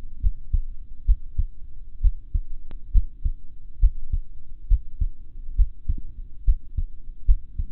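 A human heartbeat picked up by an AyuSynk digital stethoscope's chest piece over the aortic area of the chest. Regular paired lub-dub beats, about seventy a minute, sound over a low steady rumble.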